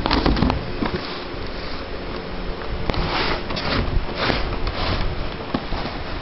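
Cardboard firework cake boxes being handled, shifted and set down on a plywood board: scraping swishes and knocks, with a few sharp clicks just after the start.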